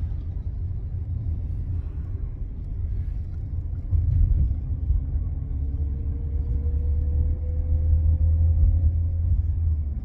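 Low, steady rumble of a car driving, heard from inside the cabin, growing louder about four seconds in, with a faint tone slowly rising in pitch through the second half.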